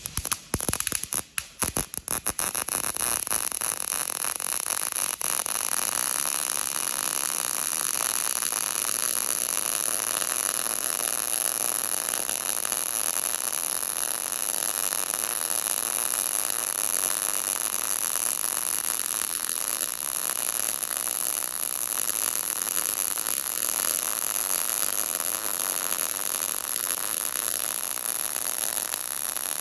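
MIG welding arc stuttering for about two seconds as it strikes, then settling into a steady, unbroken hiss while one long continuous weld bead is run.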